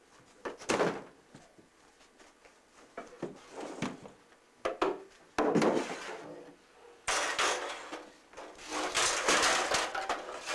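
Irregular knocks, bumps and scrapes as a push broom and wooden furniture are shoved and lifted about on a carpeted floor in a small room, with a longer stretch of rough scraping and rustling in the last few seconds.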